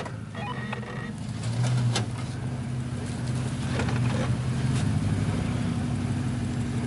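Lifted RAM 1500 pickup's engine running at low revs through a Magnaflow exhaust as the truck creeps back and forth, the engine note swelling briefly a couple of seconds in.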